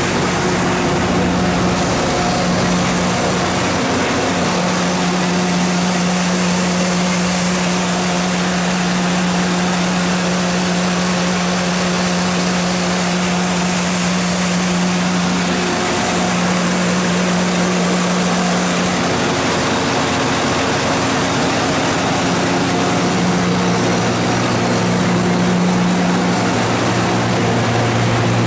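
Cummins GTA14G1 natural gas engine of a 250 kW standby generator set running steadily at its constant governed speed, a loud, even low hum that shifts a little in tone as the listening position changes.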